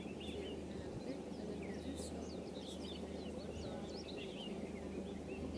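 Birds chirping: many short, quick calls overlapping throughout, over a steady low hum.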